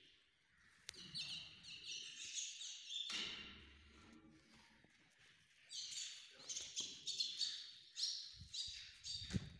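Small birds chirping in quick, repeated high notes, in two spells: from about a second in for a couple of seconds, then again from just before six seconds until near the end. A single sharp click comes just before the first spell.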